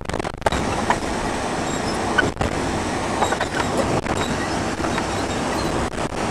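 Steady road noise inside a moving vehicle at highway speed: tyre and wind noise with the engine beneath it.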